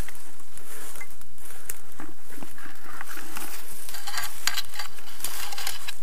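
Irregular crackling and rustling of leaves and twigs on the forest floor, with a steady low rumble underneath.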